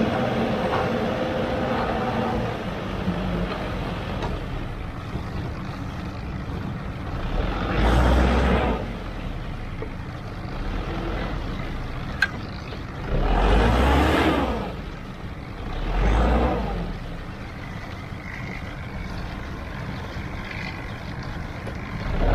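Heavy diesel earthmoving machinery working: engine noise running steadily, with four louder swells of a second or two each and a single sharp click midway.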